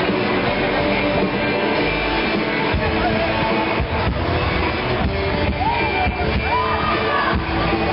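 Live rock band playing electric guitars, bass and drums, with a singer's voice over it; the low end fills out heavier about three seconds in, and the singing comes through more clearly in the second half.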